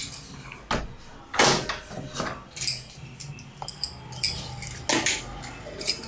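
A door being handled: a string of knocks and clicks from the latch and handle with light metallic jingling, among footsteps.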